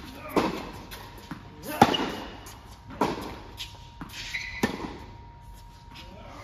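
Tennis balls struck by racquets and bouncing on an indoor hard court: four sharp impacts about a second and a half apart, the loudest about two seconds in, each ringing on in the echo of a large hall.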